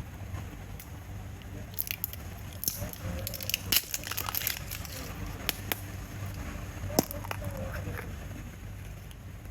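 Plastic toy packaging and candy being handled and opened: irregular clicks and short crackly bursts, busiest a couple of seconds in, with a few sharp single clicks later.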